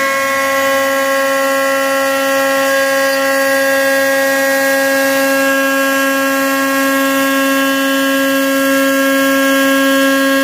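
Spindle of a 2004 Hendricks CNC router (10 HP, automatic tool changer) running at steady full speed just after spinning up, a loud, constant high-pitched whine.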